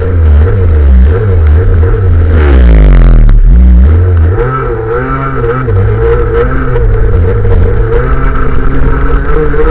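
Racing scooter engine heard on board at full throttle, its pitch dropping about two to three seconds in and then rising and falling repeatedly as it is throttled through the corners, over a heavy low rumble.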